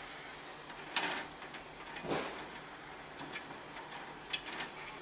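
Hand-tool handling on a metal kiosk frame: a 10mm spanner being worked on a nut, with a sharp click about a second in, a short scrape a second later and a few light ticks.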